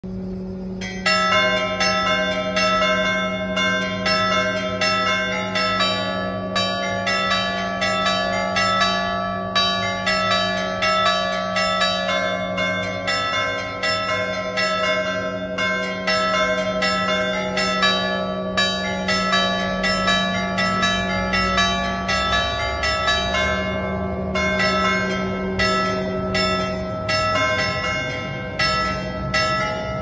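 Several church bells in an open belfry pealing, their strokes overlapping at about three a second over a sustained low hum from the bells' ringing, starting about a second in.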